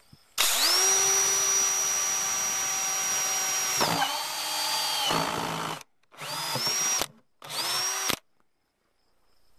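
Power drill with a hole saw boring holes in a 5-gallon bucket. It runs for about five seconds, dropping in pitch partway through as the saw bites, then gives two short bursts.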